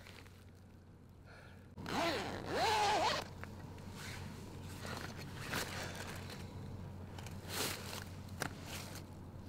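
Zipper of a black plastic body bag being pulled, loudest for about a second a couple of seconds in, followed by quieter scrapes and rustles of the bag.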